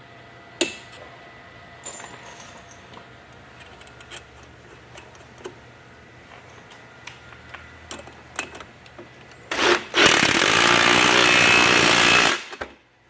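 Light clicks and taps of a stud tool and nut being handled on a snowmobile track. About ten seconds in, a power driver runs steadily for about two and a half seconds, spinning a nut down onto a track stud, then stops.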